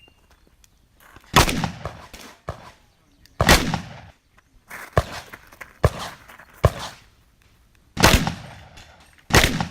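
Shotgun fired during a timed competition stage: about seven loud shots at uneven intervals. The first two are about two seconds apart, three come faster in the middle, and two more follow near the end.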